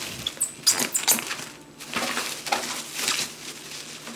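Packaging being handled and unwrapped: irregular crinkling and rustling of plastic and paper from a delivery parcel being opened.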